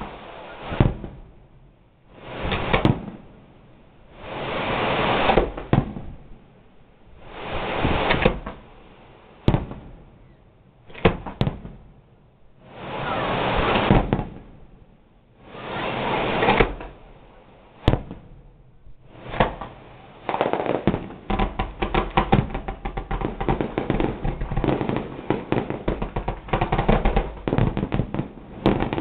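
Fireworks display: a series of rushing hisses, each building for about a second and ending in a sharp bang, every two to three seconds, then, about two-thirds of the way in, dense rapid crackling and popping.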